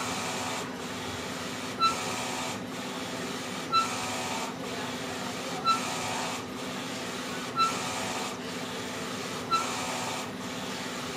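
Wide-format inkjet printer printing on dye-sublimation transfer paper: a steady mechanical whir with a low hum, broken about every two seconds by a short high chirp as the print head makes pass after pass.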